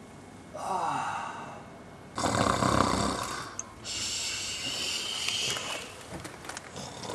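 A man snoring: three long snoring breaths in a row, the middle one loudest.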